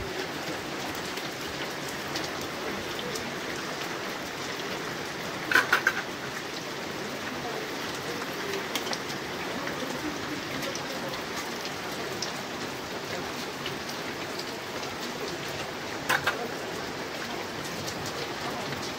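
Steady rain falling, with a quick run of three or four sharp clicks about six seconds in and two more near sixteen seconds.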